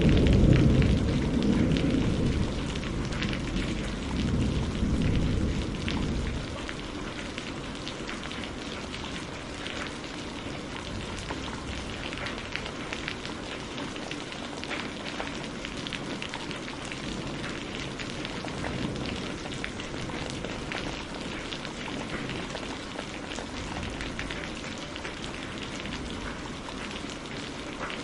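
Steady rain falling, with many fine drop ticks. A low roll of thunder rumbles at the start and fades out about six seconds in.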